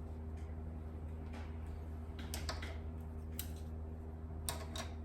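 A few small, sharp plastic clicks as the Mercedes-Benz ML W166 key fob's case is worked open by hand, over a steady low electrical hum.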